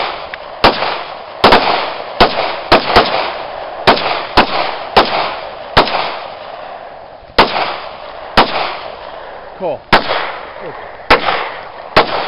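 Handgun shots from two shooters firing at once: about fifteen sharp reports at irregular intervals, some in quick pairs, each trailing off in echo.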